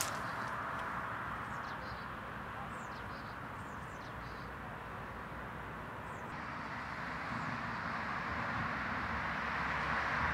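Steady outdoor background noise, with a few faint high chirps in the first half.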